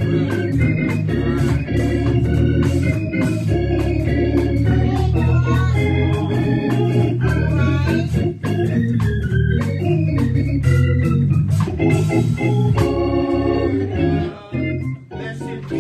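Organ music playing sustained chords over a heavy bass, with many short sharp hits along with it; it drops in level near the end.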